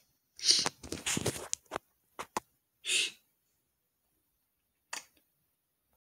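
Gunfire sound effects: a rapid run of short cracks about half a second in, two single clicks, then single hissing shots around three and five seconds in, with dead silence between.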